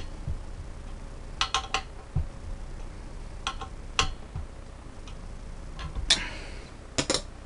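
Scattered sharp metal clicks and clinks, some in quick groups of two or three, from hand tools and air-hose fittings being handled on a small air compressor tank.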